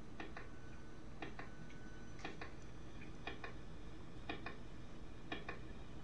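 Handheld RF meter's speaker clicking in short clusters about once a second. It is picking up the Wi-Fi pulses of a JRS Eco router in standby, which pulses once a second instead of the usual ten.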